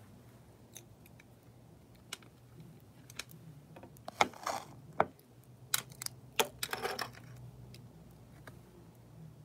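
Hands handling things on a glass-topped table: scattered sharp clicks and taps, with two short rustles about four and seven seconds in.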